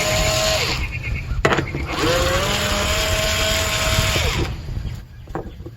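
Power driver run in short bursts to back out the screws holding a blower resistor: a steady motor whine that stops just under a second in, a sharp click, then a second run that rises in pitch as it spins up, holds steady and winds down after about two and a half seconds, with a few light clicks after.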